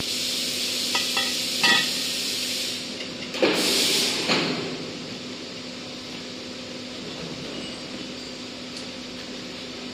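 Steel frame parts clinking three times in quick succession about a second in, then a louder metal scrape about three and a half seconds in, over a steady hiss that drops away about three seconds in and a low steady hum.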